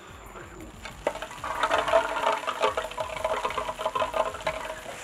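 Crickets chirping, then about a second in a sudden heavy downpour of rain starts, pattering and splashing and drowning them out.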